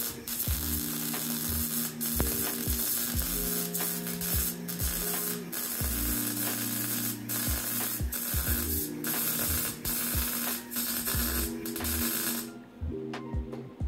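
Electric welding arc crackling steadily while an exhaust pipe joint is finish-welded; the arc stops about a second before the end. Background music plays underneath.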